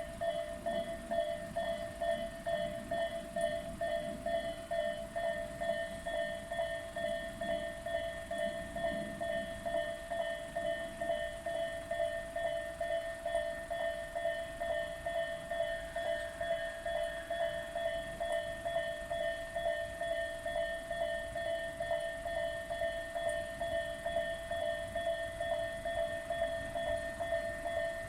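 Japanese railway level-crossing alarm ringing: an electronic bell repeating a clanging tone at a fast, even rate, steady throughout.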